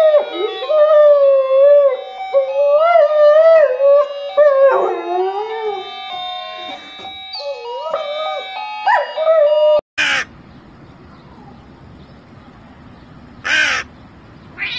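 A black dog howls along to music, its pitch wavering up and down, for about ten seconds. After a sudden cut a crow caws three times.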